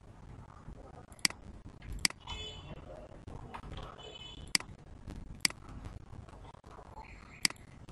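Computer mouse clicking: about five sharp single clicks at uneven intervals, over a low, steady background hum.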